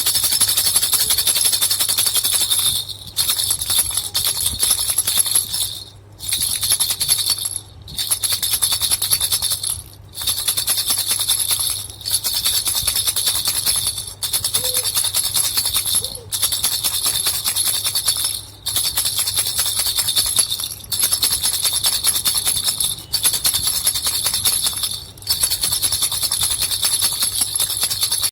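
Small baby rattle with two bells shaken steadily, jingling brightly in bouts of about two seconds, with short pauses between them.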